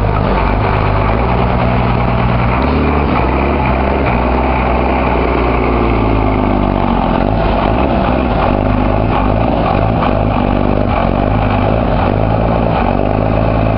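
Vehicle engine running loudly and steadily with a low rumble, its pitch sagging slightly and recovering in the middle.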